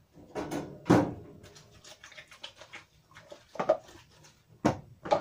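Plastic cups and dishes knocking against a wire dish rack and a basin as they are washed and set down: a few separate clatters, the loudest about a second in.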